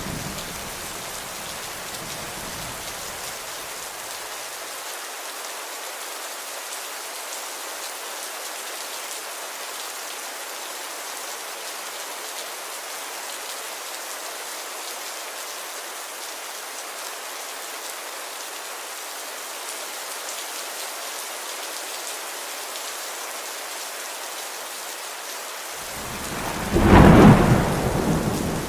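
Steady rain hissing throughout. A low roll of thunder dies away in the first few seconds, and a louder thunderclap rumbles near the end, the loudest sound here.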